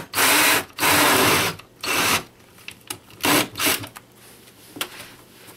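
Cordless drill spinning a hole saw on an extension as it cuts through the wall, run in bursts on the trigger: two longer runs in the first second and a half, then a few short spurts, the last about four seconds in.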